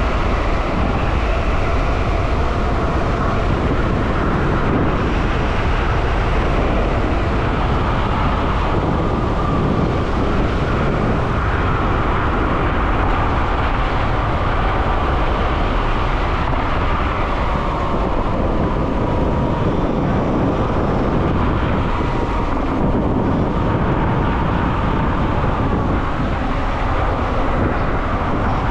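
Wind buffeting the microphone and tyre noise from a Dualtron X Limited electric scooter riding at speed, with a faint whine that drifts slowly up and down.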